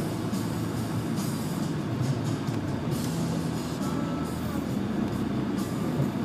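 Toyota Tacoma's engine running steadily under load as the truck crawls up a steep slickrock ledge, with scattered clicks and rattles over it.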